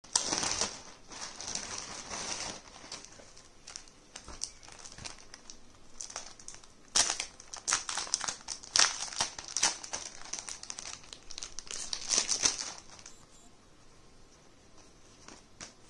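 Packaging crinkling and rustling as it is handled and opened, in irregular bursts that die down after about thirteen seconds.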